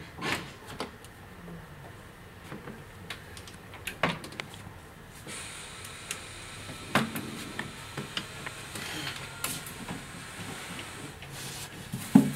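A few light clicks and knocks of a manual wheelchair being handled, spaced a second or more apart, with a faint steady hiss that comes in about five seconds in.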